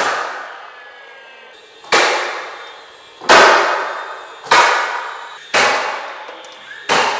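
DeWalt cordless finish nailer firing nails into a board on the ceiling framing: six sharp shots, one every second or so, each ringing off in the bare room. A short rising whine comes just before some of the shots.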